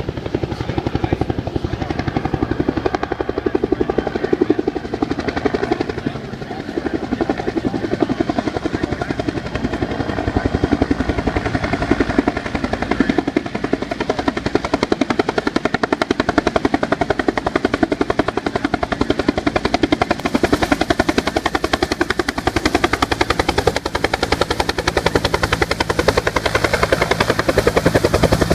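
Bell UH-1 "Huey" helicopter flying by, its two-blade main rotor making a steady, rapid chopping beat.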